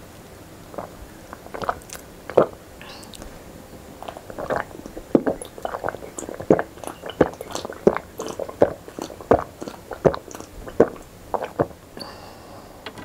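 A person gulping down an iced rose-syrup drink from a glass mug, close to the microphone, with a swallow about two to three times a second. The swallows are sparse in the first few seconds and then run on steadily until the glass is lowered near the end.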